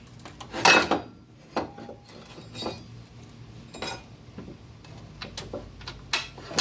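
Metal clinks and knocks as a motor mount and its bolt are handled and worked into place, about six separate taps with a louder rattle about a second in.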